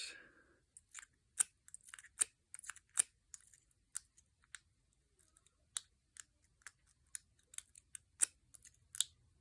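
Lock pick (Covert Instruments McTickler) working the pins of an American Lock 1105 padlock: irregular sharp metallic clicks and ticks, a few a second, as the pin stacks are picked under tension.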